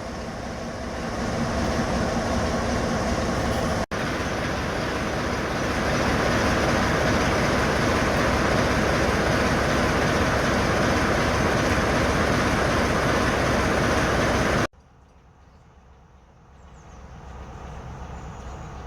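Heritage diesel locomotive running under power with a loud, steady engine and train sound. Near the end it cuts abruptly to a much quieter passage, where a sound builds up again.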